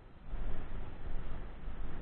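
Wind buffeting the microphone: an uneven, gusting rumble that rises and falls.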